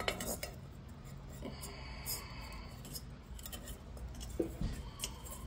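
Faint rubbing and rustling of old cloth-covered wiring being handled and pushed through a car headlamp shell, with a few light clicks near the end.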